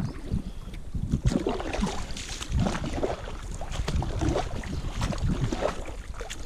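Canoe paddle strokes dipping and splashing in shallow river water in an irregular rhythm, with wind buffeting the microphone.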